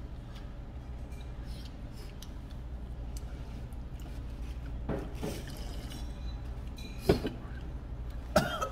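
Restaurant room tone with a steady low hum, broken by a few soft handling noises, a sharp knock about seven seconds in and another short, loud sound near the end.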